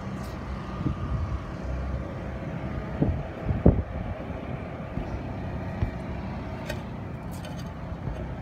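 Steady low mechanical hum with wind buffeting the microphone in a few sharp gusts, the strongest about three and a half seconds in.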